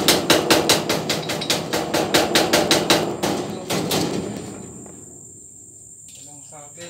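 Hammering in fast, even blows, about five a second, that stop about three to four seconds in, with a few last strokes before it fades. Crickets chirr steadily underneath.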